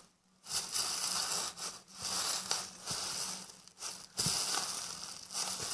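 A plastic freezer bag full of soapy foam being squeezed and kneaded by hand, crackling and squishing in several stretches with short pauses between.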